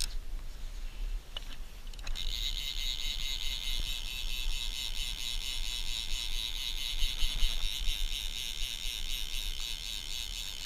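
Fly reel's click drag ratcheting in a fast, steady buzz that sets in about two seconds in, with a hooked trout pulling against the bent fly rod. A sharp click comes right at the start.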